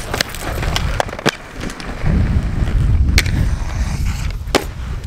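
Aggressive inline skate wheels rolling on skatepark concrete: a low rumble that grows louder about two seconds in, with a few sharp clacks of the skates on the surface.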